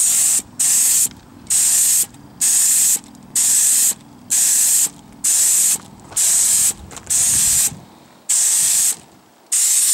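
HVLP gravity-feed spray gun spraying paint in short bursts of hiss, about one a second, with the trigger pulled and released for each pass.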